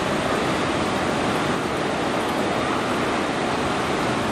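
Steady, even rushing roar of a Boeing 777-300ER jet airliner.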